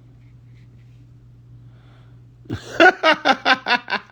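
A person bursting into laughter about two and a half seconds in, a quick run of about eight loud 'ha' pulses.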